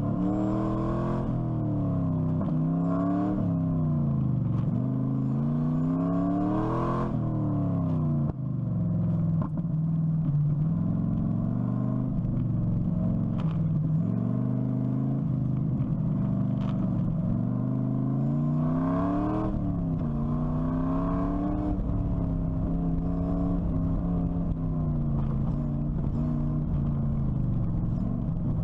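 LS1 V8 engine of an Exomotive Exocet autocross car revving up and down over and over as the driver accelerates and lifts between cones, its pitch repeatedly climbing and falling. There are brief dips in loudness about eight and nine and a half seconds in.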